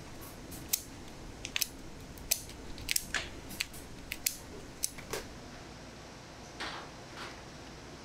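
Kitchen scissors snipping through a cooked spiny lobster's shell: a run of sharp, irregular snips and cracks through the first five seconds, then two softer crunches near the end.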